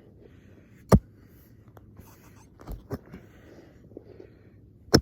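Two loud, sharp knocks about four seconds apart, with two softer knocks close together between them, over faint background noise.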